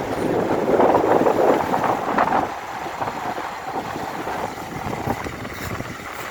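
Outdoor traffic noise with wind on the microphone, louder for the first couple of seconds and then dying down.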